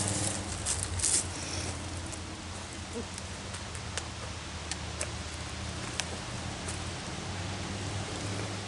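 Rustling and handling noise in the first second or so, then a low steady hum with a few faint, scattered clicks.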